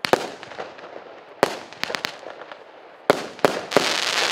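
Consumer fireworks cake of 0.8-inch shots firing: a string of sharp reports as the shells burst, a second or so apart, then near the end a dense crackling as the finale's crackling brocade stars go off.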